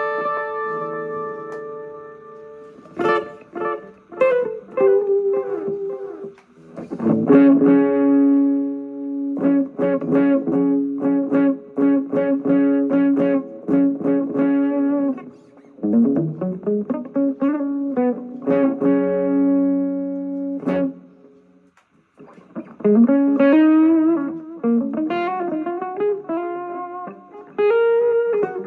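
Electric guitar (Epiphone SG Special) played through a Vox MV50AC amp head and a DIY wine-box speaker cabinet fitted with a Laney HCM 30 speaker, with Zoom G1Four effects: a phrase of long sustained notes and picked runs, a brief pause about two-thirds of the way in, then string bends near the end.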